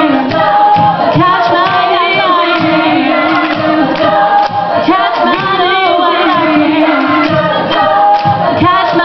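Vocal group singing layered harmonies without clear words, over a steady beat.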